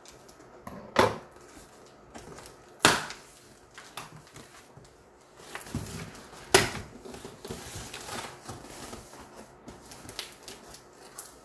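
Hands working at a tightly taped cardboard box: cardboard and tape rustling and scraping, with three sharp snaps or knocks about a second, three seconds and six and a half seconds in.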